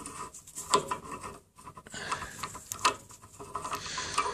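Handling noise of a Detroit Diesel Series 60 unit fuel injector being gripped and turned by hand in a bench vise: metal scraping and rubbing with irregular light clicks as the parts are worked.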